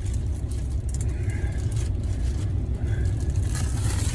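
Steady low rumble in the background, with faint rustling and light clicks over it.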